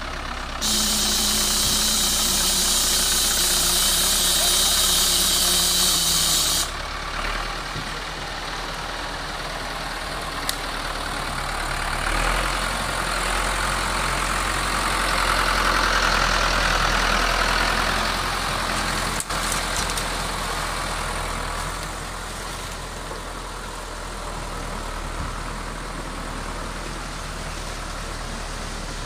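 Yanmar F70 tractor's diesel engine running under load as it pulls a loaded timber trailer through mud, growing louder for several seconds around the middle. A loud hiss starts suddenly about a second in and cuts off again about six seconds later.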